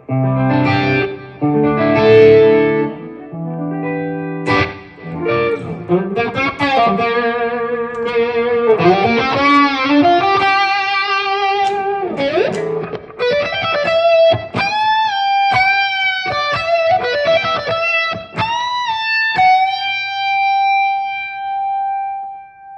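Strat-style electric guitar played through a Headrush Prime amp modeller on a mid-gain, classic-rock 'brown sound' overdrive patch. It starts with chords, moves into a single-note lead with string bends, and ends on a long held note.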